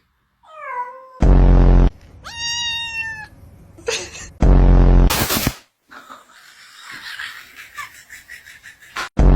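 A cat meowing and yowling: several drawn-out cries, one high and others falling in pitch, broken by three short, very loud, low-pitched sounds.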